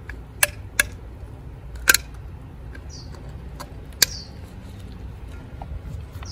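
A few sharp clicks from a caulking gun being handled, and a bird chirping briefly three times, each chirp falling in pitch, over a low steady rumble.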